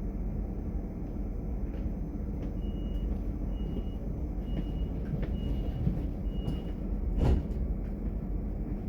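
Inside a DB Class 425 S-Bahn electric multiple unit: a steady low running rumble. Five short high beeps sound about a second apart from about three seconds in, then a single sharp knock about seven seconds in.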